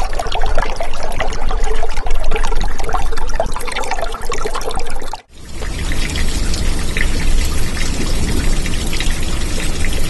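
Running water, loud and continuous. It cuts off abruptly about five seconds in and starts again at once, with more low rumble in the second part.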